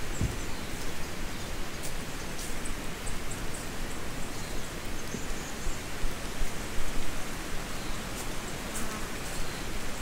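Forest ambience: a steady, even rushing noise with scattered short, high chirps over it.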